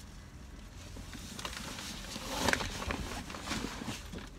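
Rustling and knocking of a person shifting and climbing out of a car's driver's seat, loudest about halfway through and dying away near the end.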